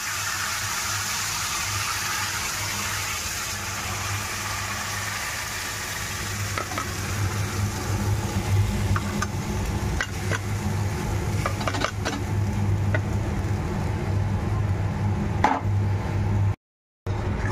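Hot oil and spices sizzling in a steel kadhai as thick ground onion-tomato gravy goes in, the sizzle fading after the first several seconds. A steel ladle then clinks and scrapes against the pan now and then, over a steady low hum, and the sound cuts out briefly near the end.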